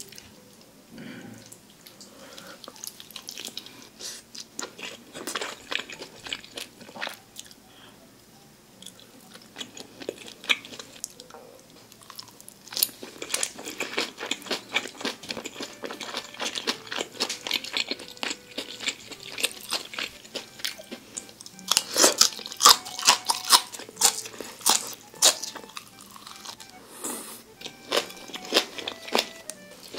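A person chewing and biting food close to the microphone, with many crisp crunching crackles that are thickest a little past the middle.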